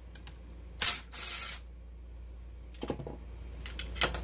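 Metal clicks and a short scrape as a bolt is backed out and the cam position sensor plate is pulled off a Honda J32A2 cylinder head. A sharp click comes about a second in, a few lighter clicks near the end and a sharp clink just before the end, over a steady low hum.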